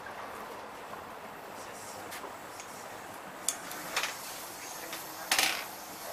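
Steady running noise inside a moving Metro Trains Melbourne suburban electric train carriage, with a few sharp clicks and a louder clatter about five seconds in.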